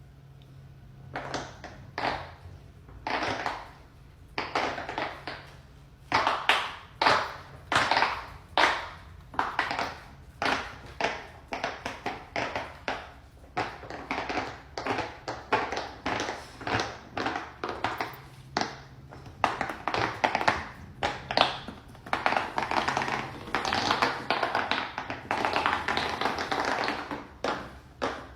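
Fidget toys being pressed and tapped: a run of short taps and pops, one or two a second at first, crowding into a quicker, denser patter over the last several seconds.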